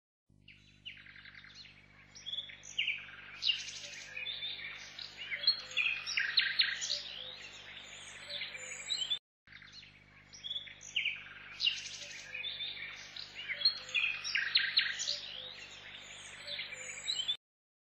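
Many small birds chirping and trilling over a faint steady low hum. The same stretch of birdsong plays twice, breaking off suddenly about halfway and starting again, as a looped ambience track does.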